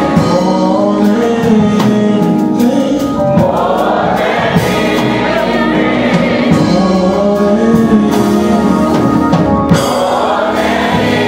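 Gospel worship song sung by a choir of voices, with instrumental accompaniment that includes a regular percussive beat.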